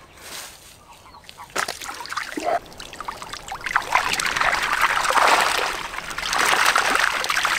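Water splashing and trickling, with many small splashes. It starts about a second and a half in and grows louder.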